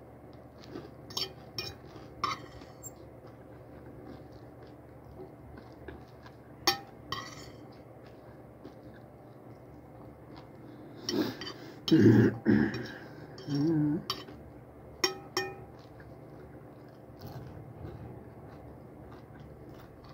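Metal fork clinking and scraping against a plate during a meal, in scattered sharp clicks with the loudest cluster of clatters a little past halfway.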